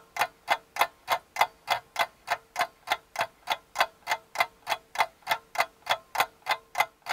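Steady, even ticking, about three ticks a second, with a faint steady tone under it.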